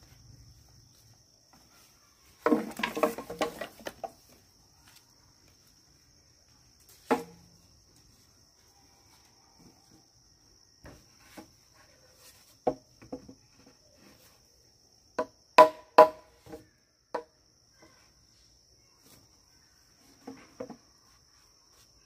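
Irregular sharp wooden knocks and clatter, some in quick clusters and some single, over steady insect chirring.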